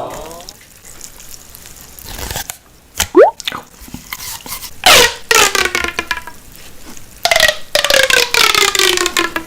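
Loud wet mouth sounds of eating close to the microphone: squelching, slurping clicks and a short rising squeak, then long squeaky tones that slide down in pitch, twice for over a second each.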